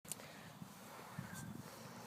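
Faint background noise with a sharp click at the very start and a soft knock about a second in.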